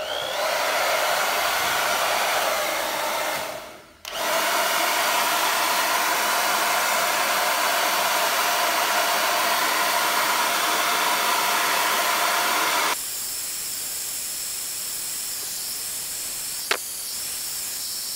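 Handheld hair dryer blowing steadily on hot glue to soften it. It cuts out briefly about four seconds in and comes back, then about two-thirds of the way through it drops to a quieter, thinner hiss. A single sharp click comes near the end.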